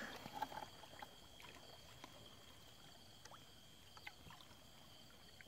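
Faint water sloshing and a few small splashes from people wading waist-deep and groping by hand for fish, over a steady high-pitched drone of night insects.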